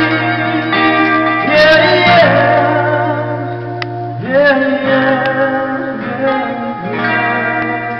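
A man singing long held notes while strumming an acoustic guitar, growing a little quieter toward the end.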